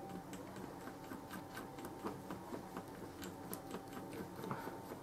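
A thin stick stirring thinned acrylic model paint in a small pot, tapping lightly and irregularly against the pot's sides: several faint clicks a second.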